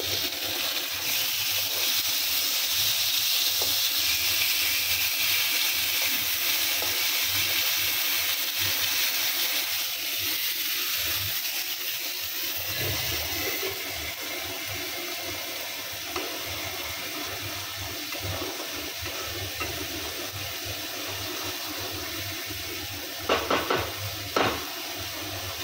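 Hot oil sizzling steadily, first around fish frying in a pan, then around an onion, chilli and tomato spice paste being stirred with a spatula in a kadai; the sizzle eases about halfway through. Near the end there are a few sharp knocks.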